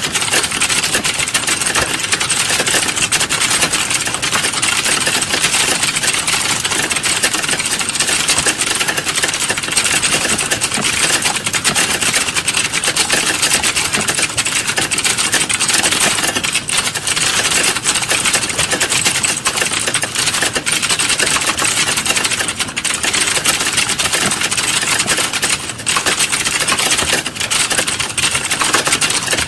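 Fast, continuous typing on a computer keyboard: a dense, unbroken stream of key clicks.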